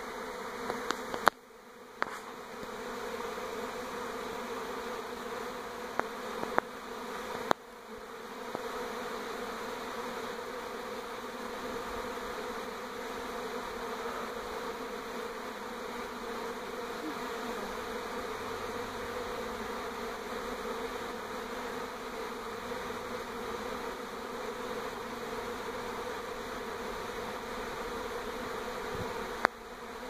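Honey bee swarm in flight: the steady, dense buzzing hum of many bees in the air. A few sharp clicks cut in during the first eight seconds, and once more near the end.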